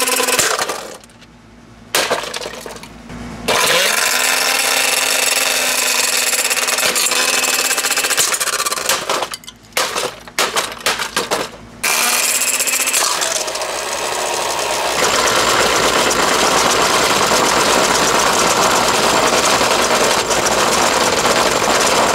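Hamilton Beach blender motor running flat out with a steady whine. It cuts out under a second in, restarts twice, then is pulsed on and off several times in quick succession before running on with a harsher, rattling sound. The blender is being run hard to try to burn out its motor.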